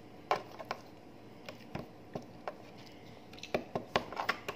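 Homemade slime being pressed and poked in a small cup: scattered soft clicks and squelches, more of them close together near the end.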